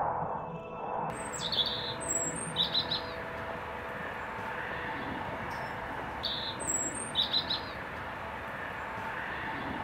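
Small birds chirping in short, quick phrases over a steady outdoor background hiss, the same chirp patterns recurring every few seconds. A fading musical tone is heard in the first second.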